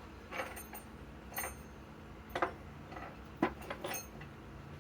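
Handling noise: about six sharp clicks and light clinks at irregular intervals, with no driver or wrench running.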